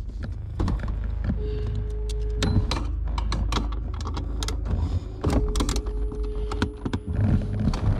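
A ratchet with a 13 mm socket working the bolts of a car's gas pedal assembly: irregular sharp metal clicks and ticks. A steady low hum runs underneath.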